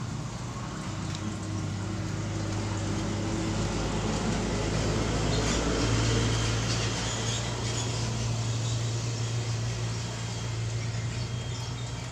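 Steady low machine hum, getting louder toward the middle and easing off near the end.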